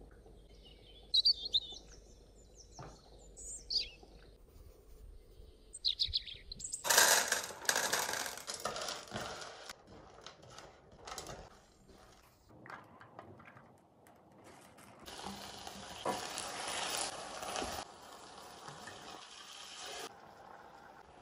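Pan cooking: a few short high chirps in the first seconds, then two stretches of sizzling hiss as rock sugar and then a soy braising sauce cook in a steel pan, with scattered scrapes and clinks of a spatula.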